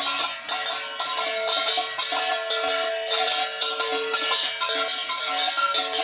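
Music: a melody on a plucked string instrument over a steady rhythmic shaking percussion.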